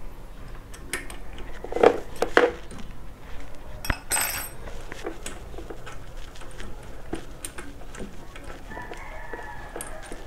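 Metal hand tools and engine parts clinking and clanking during work on a small motorcycle engine. There are two louder clanks about two seconds in and a short scraping burst around four seconds.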